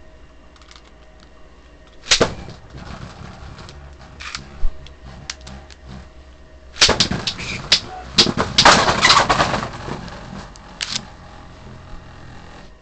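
Beyblade spinning tops in a plastic Zero-G stadium: a sharp clack about two seconds in as they land, light scraping and rattling with scattered clicks, then a dense burst of rapid clacking as they clash between about seven and ten seconds, with one last click near eleven.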